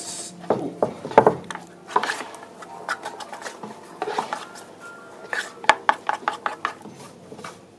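Rice paddle slicing and scraping through freshly steamed rice in a wooden sushi tub, mixing in the sushi vinegar: a quick run of irregular scrapes with the odd knock of paddle on wood.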